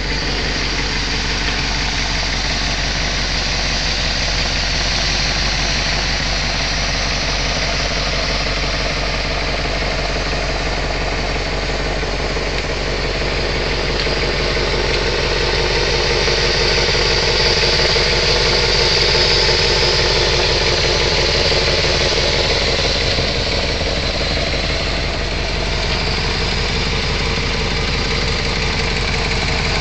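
1979 Mercedes-Benz 450SL's 4.5-litre V8 idling steadily, heard up close with the hood open.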